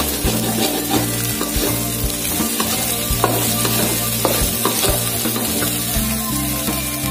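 Sausage, egg and tomato sizzling in an aluminium wok while a spatula stirs and scrapes through them, with a few sharp knocks of the spatula on the pan. Background music runs underneath.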